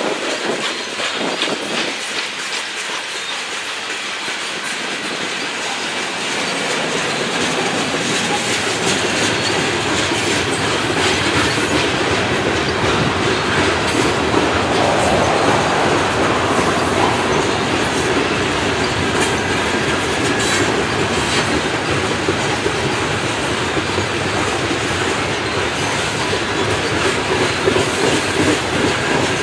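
Coal hopper cars rolling past on steel wheels: a steady rumble and clatter with many sharp clicks as the wheels cross the rail joints, growing gradually louder over the first ten seconds or so and then holding.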